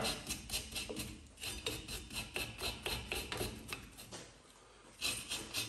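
Steel wire brush scrubbing the metal parts of a car's rear drum brake, in rapid scratchy back-and-forth strokes, about four a second. The strokes pause briefly about four seconds in, then start again.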